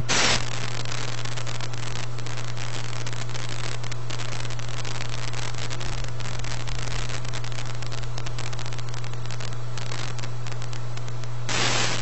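Analog video static: a steady hiss dense with fine crackle over a constant low hum.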